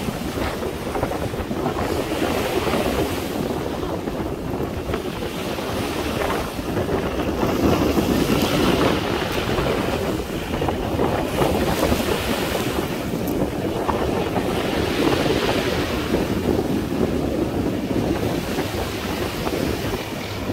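Small waves breaking and washing over a pebble beach, swelling in surges every few seconds, with wind buffeting the microphone.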